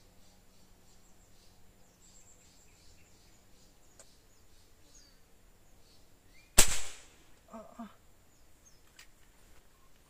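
A single sharp gunshot about six and a half seconds in, dying away over half a second, followed by a couple of short fainter sounds, over a faint steady high-pitched background.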